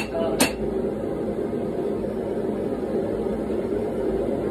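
A single blow of a 1.5-pound rounding hammer on a hot knife billet on the anvil, about half a second in, with a brief ring. After it comes the steady roar of a gas forge burner while the hammering pauses.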